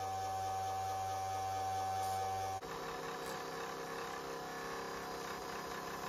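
Electric motor spinning a magnet-studded disc, running with a steady hum and a high whine. About two and a half seconds in, the sound cuts abruptly to a slightly different steady motor hum with more hiss.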